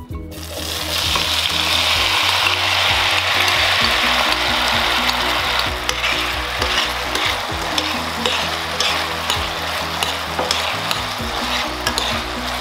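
Potato pieces frying in hot oil: a loud sizzle starts suddenly, then settles slightly. From about halfway through, a utensil clicks against the pan as they are stirred.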